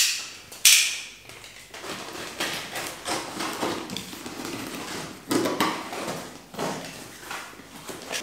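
Utility knife slicing through packing tape on a cardboard box, with cardboard scraping and rustling: two sharp sounds near the start, then a run of irregular scratchy cutting strokes.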